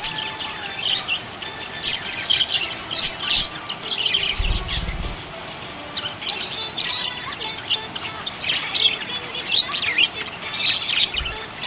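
Several small pet parrots chirping and chattering continuously in quick, overlapping calls. There is a brief low thud about four and a half seconds in.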